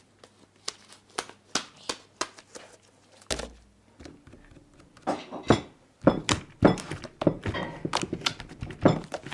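Sticky homemade glue slime being kneaded and pulled apart in the hands: a run of short wet clicks and smacks, sparse at first and coming thick and fast in the last four seconds, as the slime still clings to the hands.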